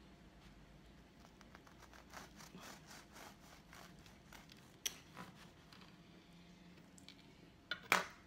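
Bread knife sawing back and forth through a soft, oat-topped rye-malt loaf: a quick series of faint rasping strokes. A sharp knock comes near the end.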